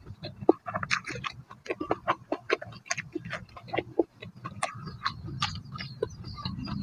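Close-miked eating sounds: wet mouth clicks and lip smacks while chewing fresh herb leaves, sharp irregular clicks several times a second over a low rumble.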